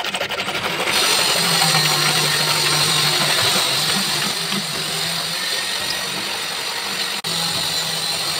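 A hacksaw blade cutting through a PVC pipe by hand in quick, even strokes, about seven a second. About a second in, this gives way to a steady machine hum with hiss.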